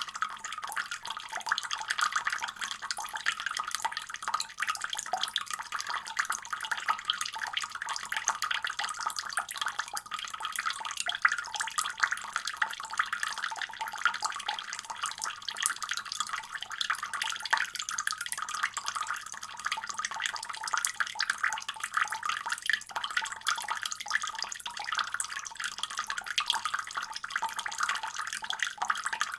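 Water running steadily from a faucet, an even, unbroken splashing.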